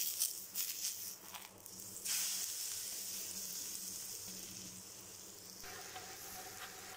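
A vegetable gram-flour dosa sizzling in groundnut oil on a hot iron dosa tawa. The sizzle gets louder about two seconds in, then slowly fades.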